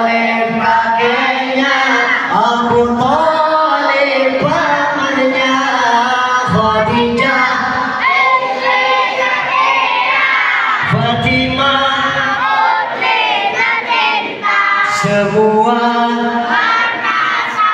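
A voice singing an Arabic devotional song (sholawat) into a microphone over the mosque's loudspeakers. The melody is ornamented, with long held notes and short breaks between phrases.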